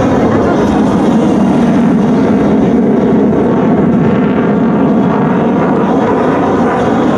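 Steady, loud jet engine noise from a twin-engine delta-wing canard fighter jet flying a display manoeuvre overhead.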